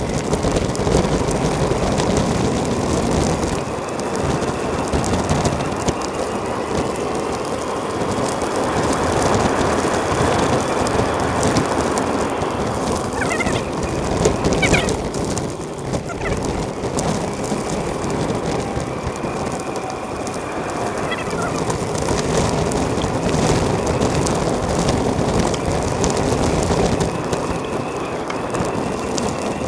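Steady rushing wind and road noise on the microphone of a moving bicycle, with a few brief high chirps about halfway through.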